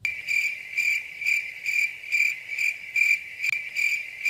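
Cricket chirping sound effect: a steady high-pitched trill pulsing about twice a second, cut in suddenly out of silence. It serves as the comic awkward-silence gag.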